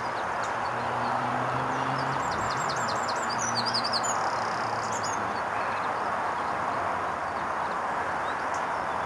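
Steady hiss of steam billowing from the cylinder drain cocks of LMS Jinty 0-6-0 tank engine 47327. A bird chirps quickly several times about a third of the way in.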